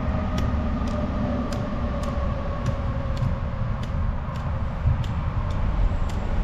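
Steady rumble of highway traffic on the Pennsylvania Turnpike, with a faint steady whine running through it.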